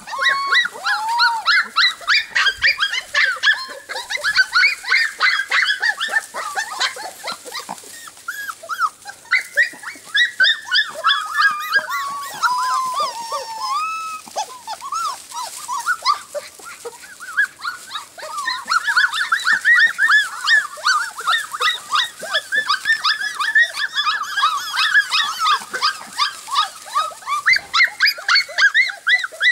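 Four-week-old English cream golden retriever puppies barking together: a steady stream of short, high-pitched calls from several puppies at once, overlapping throughout.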